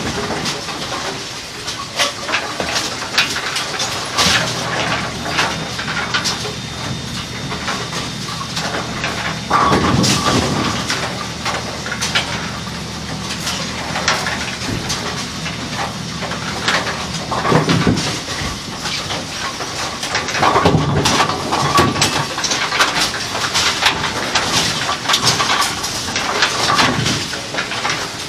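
Kegel Pin Shine bowling-pin cleaning machine running, with a steady hiss and frequent knocking and clattering as the pins are handled. A low hum runs under it through the first half.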